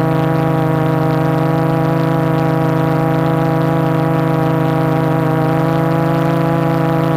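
Steady whine of a 450 quadcopter's four MultiStar 2212 brushless motors and 12x4.2 carbon-fibre props holding a hover, picked up by the GoPro on its frame: one unchanging hum with a stack of steady overtones, wavering slightly about five seconds in.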